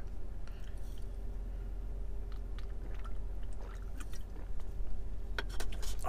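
Steady low hum inside a truck cab with scattered small handling sounds. A few sharp clicks near the end come as an aluminium drink can is set into the console cup holder.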